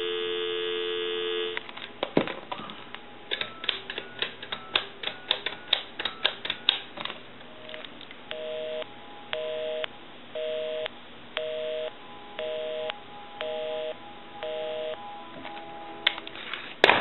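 Telephone line audio from a Western Electric Sculptura donut touch-tone phone: steady dial tone for about a second and a half, then a quick run of touch-tone digits keyed in, then a busy signal pulsing about once a second, showing that the called line is in use. A click near the end.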